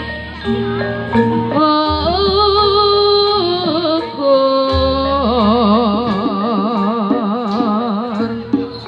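Javanese jaranan accompaniment music: a singer holds long notes with a strong, even vibrato over steady sustained instrument tones and a low drone.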